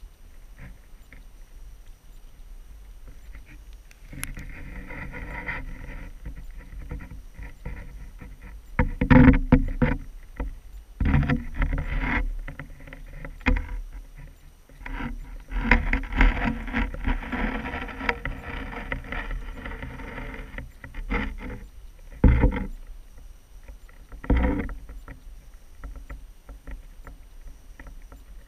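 Water sloshing and splashing in irregular bursts, some with a deep rumbling thump, starting a few seconds in.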